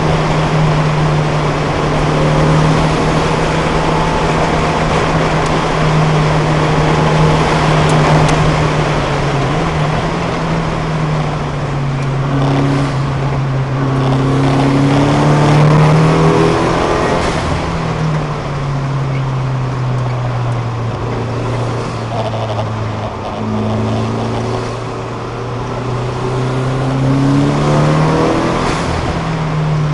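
Datsun 510's 1.6-litre inline-four engine at racing revs, heard from inside the car. It holds a steady high note for the first third, then its revs drop and climb again several times in the second half, under steady wind and road noise.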